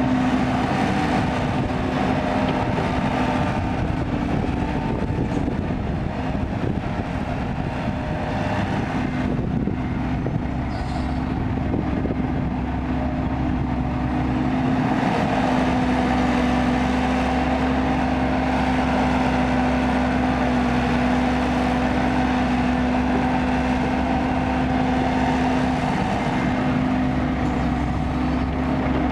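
Diesel engine of a working Kobelco excavator, running steadily, a little louder from about halfway through.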